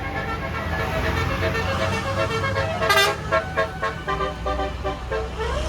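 Bus's basuri telolet horn playing a melody of quick, stepped notes over the low rumble of the bus engine, with a loud burst about halfway through.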